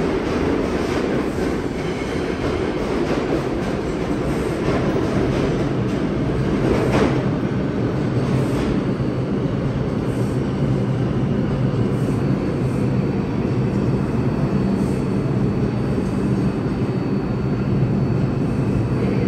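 Kawasaki R142A subway train standing at the station platform with its doors open, giving off a steady rumble and hum. The hum grows steadier and stronger about halfway through, and there is one short sharp sound about seven seconds in.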